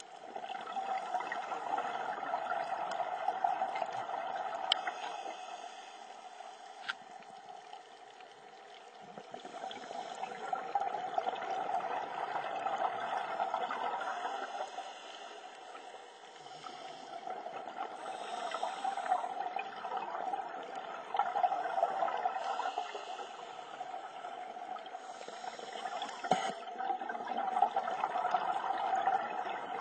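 Scuba diver breathing through a regulator, heard underwater: about four long swells of bubbling exhaust, each several seconds long, with quieter gaps between them.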